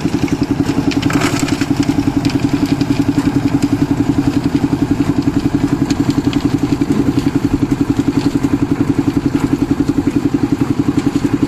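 Portable concrete mixer's engine running steadily with a rapid even pulse, its drum tipped to discharge. Wet concrete slides and clatters out of the turning drum into a steel wheelbarrow, with a burst of clatter about a second in.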